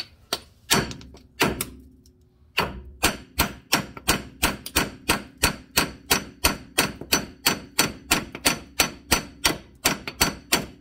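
Hammer blows on steel at a seized, tapered lower strut mount, trying to drive it off its stud: three separate ringing strikes, then a steady run of about three strikes a second. The stuck joint does not break free.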